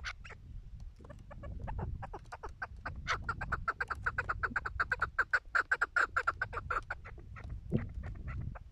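Chukar partridges calling: short clucks that quicken into a fast, loud run of chuck notes between about three and seven seconds in, then thin out again into scattered clucks.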